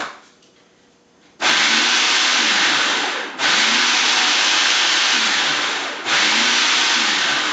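Electric grinder chopping old bread, run in three pulses of about two seconds each, starting about a second and a half in. The motor's pitch sags and recovers as it works through the bread.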